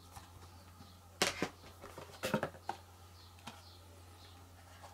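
Plastic DVD case handled and turned over in the hands: a few short clicks and taps, in two small clusters about a second and two seconds in and once more near three and a half seconds, over a faint low hum.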